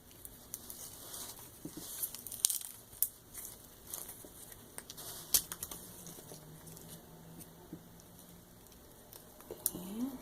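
Corn husk and silk crinkling and tearing in short, irregular crackles as they are peeled by hand from a small ear of corn.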